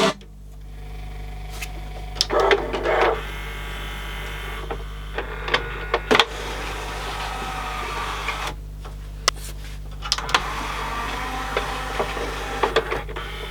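Mechanical whirring in short spells and scattered clicks over a steady low hum, typical of a Yamaha CDC-755 five-disc CD changer's drawer and carousel mechanism moving once playback has stopped.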